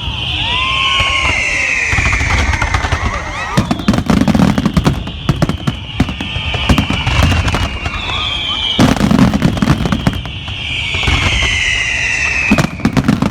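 Fireworks display: a dense run of bangs and crackling bursts, with whistling fireworks whose pitch falls slowly over two to three seconds each, about four times.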